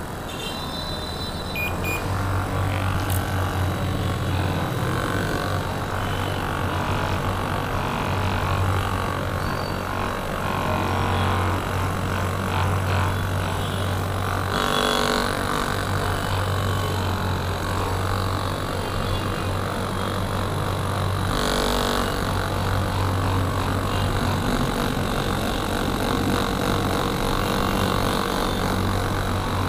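Handheld percussion massage gun running against the body, its motor giving a steady low buzz with a few short breaks.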